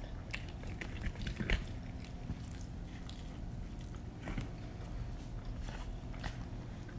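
Close-miked pizza eating: chewing and biting with wet mouth clicks and smacks. The loudest bite comes about a second and a half in.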